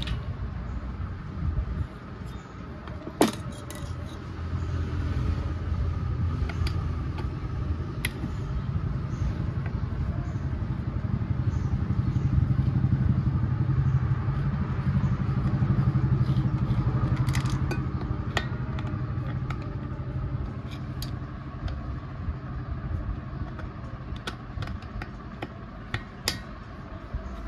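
Light metal clicks and clinks of hand tools against a stripped-down petrol chainsaw, with a sharp clink about three seconds in and a few more later, over a steady low rumble that swells in the middle and fades near the end.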